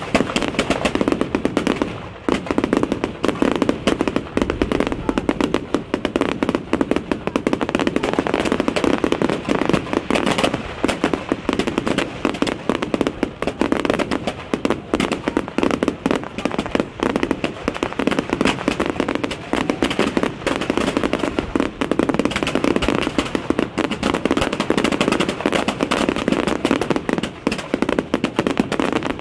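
Fireworks display with many shells and ground effects firing at once: a dense, unbroken run of bangs and crackles, with a short lull about two seconds in.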